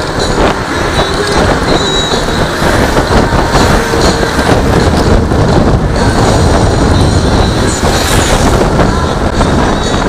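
Wind rushing over the microphone and road noise while riding a Honda Click 150i scooter, steady and loud with a fluttering buffet.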